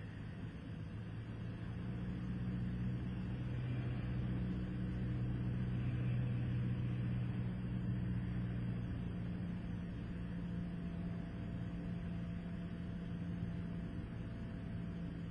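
Cessna 172 Skyhawk's four-cylinder engine and propeller droning steadily inside the cockpit on final approach, swelling a little a few seconds in and then easing back.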